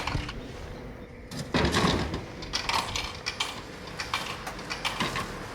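A drink drops and clatters into a vending machine's delivery bin about a second and a half in, followed by several lighter knocks as it is handled in the bin.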